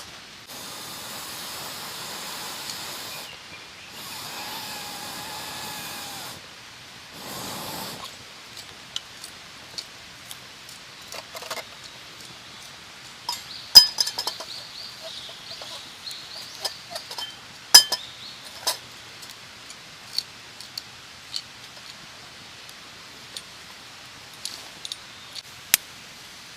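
Stainless steel fire-stand parts clinking and knocking together as they are handled and fitted, with sharp metallic clinks that ring briefly, the loudest two about 14 and 18 seconds in. Three stretches of steady rustling noise come in the first eight seconds.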